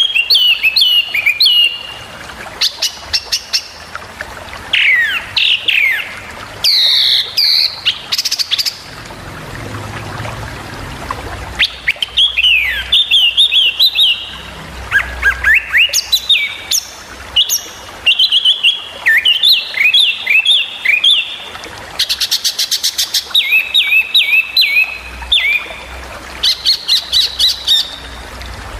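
A small songbird singing sharp 'tembakan' phrases: quick runs of high chipping notes and downward-slurred whistles, repeated in bursts with short pauses between.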